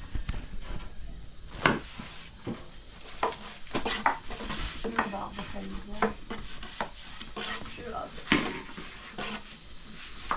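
Kitchen utensils and dishes knocking and clinking at an irregular pace, with some stirring and scraping, while bread is being prepared.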